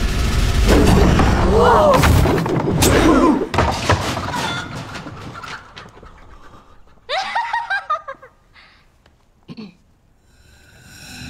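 Film soundtrack: a few sharp hits over loud voices for the first few seconds, then a short spoken exclamation about seven seconds in, followed by a quiet stretch.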